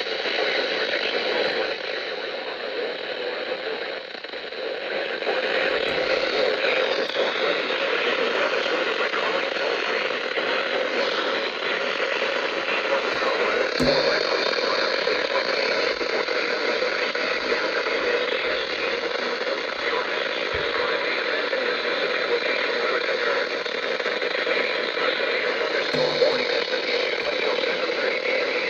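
Steady radio static: the hiss of a radio receiver with no clear transmission, with a sharp click about 14 seconds in.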